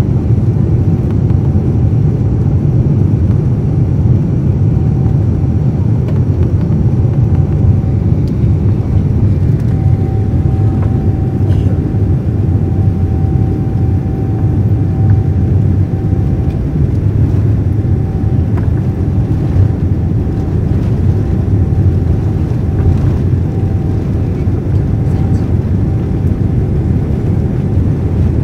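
Cabin noise in a Boeing 787-9 taxiing on the ground: a steady low rumble of the engines at taxi power and the airframe rolling, with a faint steady whine on top.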